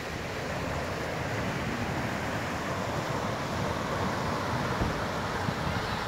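Steady rushing of a shallow stream running over stones, with wind buffeting the microphone in uneven low rumbles; it grows slightly louder toward the end.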